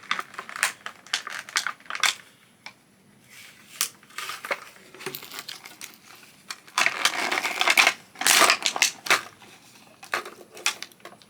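Plastic toy packaging being handled and crinkled, with irregular crackles and clicks as small playset pieces are unwrapped. There is a longer, louder stretch of crinkling about seven seconds in.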